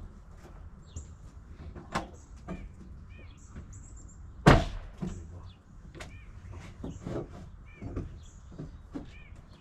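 Hammer blows on the wooden deck boards and frame as they are knocked loose: a few scattered strikes, one much louder about halfway through. Birds chirp in the background.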